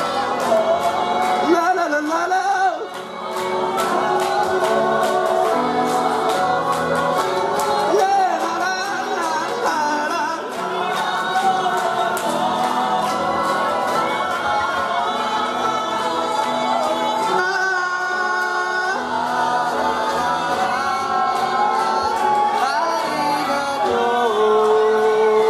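A large group of voices singing together over a steady beat of short hits, with a single note held near the end.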